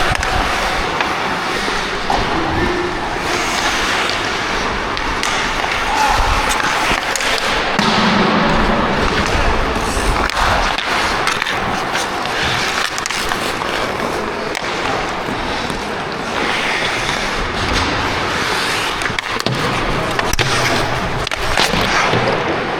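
Ice hockey skate blades carving and scraping across the ice, with hockey sticks and puck clacking sharply now and then.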